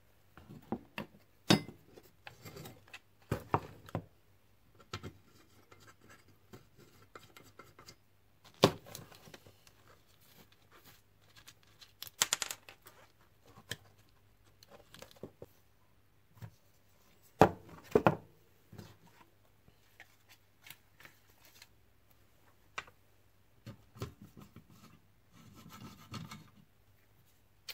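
A spanner and the metal parts of a motorcycle headlight and instrument-cluster bracket being unbolted and handled on a workbench: scattered clicks, rattles and knocks, a few of them sharp, over a faint steady low hum.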